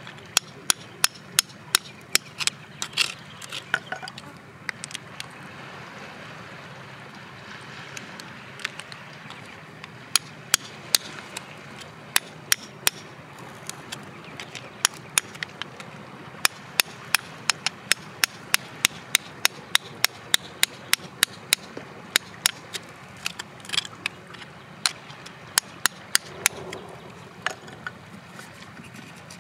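Hammer tapping a hand-held chisel into rock, a run of sharp metallic taps at about two to three a second, broken by short pauses.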